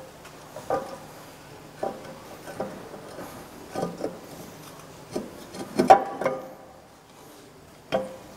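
Metal engine parts and hand tools clinking and knocking as an intake manifold is fitted to a car engine. Scattered single knocks, some with a brief metallic ring, with the loudest cluster about six seconds in, over a faint steady hum.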